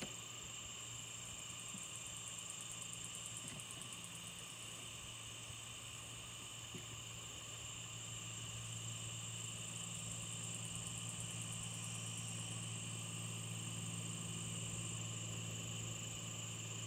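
Crickets and other insects chirring steadily, with fast pulsing trills in the high range, over a faint low steady hum.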